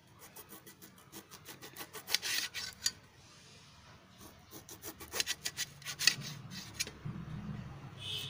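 Kitchen knife sawing through whole lemons on a steel plate, cutting them into quarters: quick rasping strokes through the rind, in two bursts.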